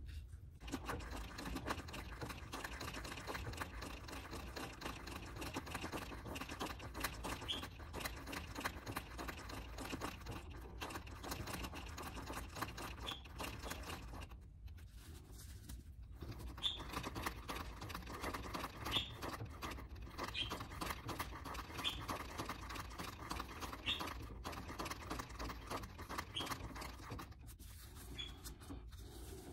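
Treadle sewing machine stitching through fabric and water-soluble paper in a hoop, as a fast, even patter of needle strokes. It pauses briefly about halfway through and again near the end.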